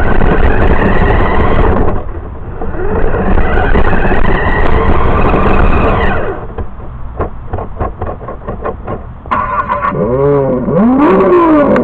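RC car driving, heard through its onboard camera: a loud rolling rumble with the motor's whine rising and falling in pitch. About six seconds in it gets quieter, with a run of clicks. Near the end the motor revs up and down a few times.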